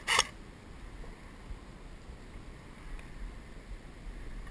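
One sharp shot from an airsoft electric rifle right at the start, then faint, steady outdoor background noise with a low wind rumble.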